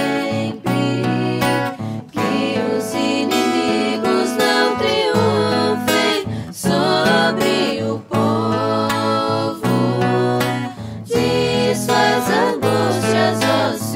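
Acoustic guitar strummed in a slow accompaniment to a sung Portuguese responsorial psalm, with a wavering melody line held over the chords between sung phrases.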